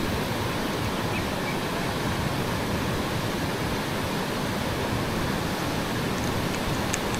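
Steady, even rushing noise with no rhythm or pitch, and a faint tick near the end.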